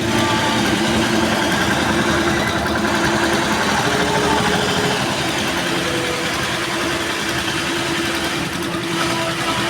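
Single-head computerized embroidery machine running steadily as it stitches.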